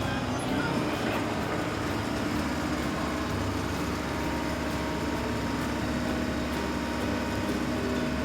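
Excavator engine sound effect running steadily as a continuous mechanical drone.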